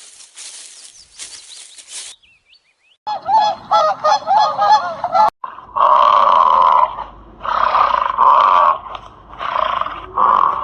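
Animal honking calls: a quick run of short wavering calls, then a series of louder, longer honks of about a second each.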